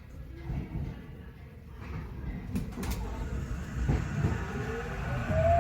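Inside a Tokyo Metro 8000 series train pulling away: a low rumble with a few clicks, then a rising whine from the traction motors near the end as the train starts to accelerate.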